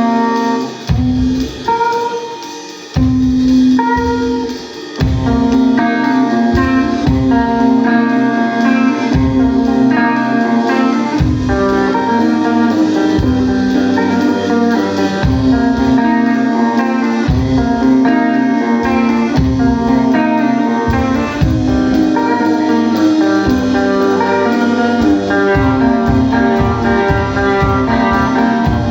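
A rock band playing live without vocals: guitars play over a regular low beat. The sound is sparser for the first few seconds, and the full band comes in about five seconds in.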